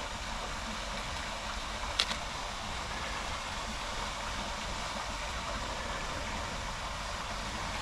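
Steady rush of a small waterfall pouring into a creek canyon, with one sharp click about two seconds in.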